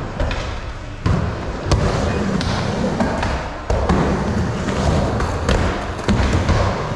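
Skateboard dropping in and riding a mini ramp: a steady low rumble of the wheels rolling on the ramp surface, broken by sharp knocks of the board landing and hitting the ramp, the first about a second in, then a few more.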